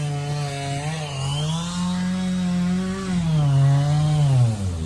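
Zip cutter (cut-off wheel) cutting through steel axle spring perches, its motor pitch sagging as the wheel bites and recovering as it eases off, several times.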